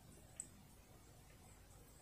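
Near silence: room tone, with one faint tick about half a second in.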